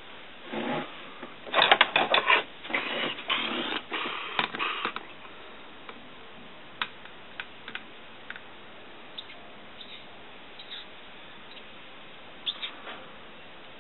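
Rustling and clicking: a busy spell of knocks and rustles in the first few seconds, then a few scattered light clicks.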